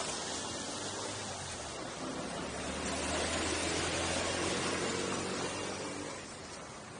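Car driving on a paved road: a steady hiss of wind and tyre noise, with a low engine hum swelling through the middle as another vehicle passes close by, then fading.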